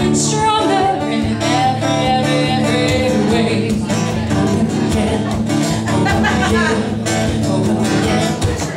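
A woman singing a song while strumming an acoustic guitar, the voice holding and sliding between notes over steady chords.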